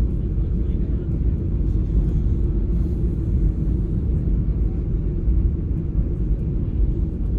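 Steady low rumble inside the cabin of a Boeing 737-800 airliner: jet engine and airflow noise around landing.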